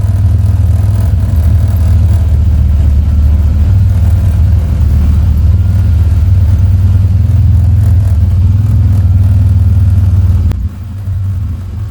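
A motor vehicle driving, heard from on board as a steady low rumble that drops away abruptly about ten and a half seconds in.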